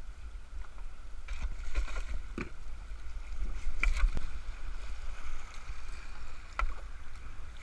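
Fast, shallow river water rushing and splashing around a loaded canoe running a narrow rocky channel in rapids, over a steady low rumble. A few sharp knocks and splashes from the paddles come about two and a half seconds in, around four seconds, and near the end.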